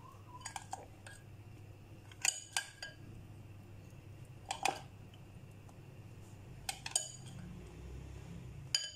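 Spoon clinking against a glass mixing bowl while chicken pieces are turned in a thick yogurt marinade: about half a dozen short, sharp clinks spaced irregularly a second or two apart.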